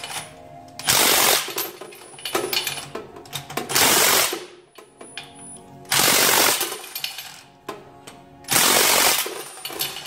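Milwaukee cordless half-inch impact wrench driving a torque stick, hammering wheel bolts tight in four short bursts, about one per bolt, with small clicks of the socket being moved between bolts. The torque stick limits each bolt to about 80 foot-pounds.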